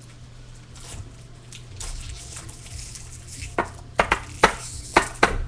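Foil card wrapper being handled and torn open: soft rustling, then a quick run of about six sharp crinkles and crackles in the last two seconds.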